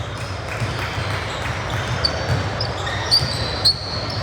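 Basketball game sounds: a ball bouncing on the court and several short, high sneaker squeaks in the second half, the two loudest a little after three seconds in, over a steady background noise.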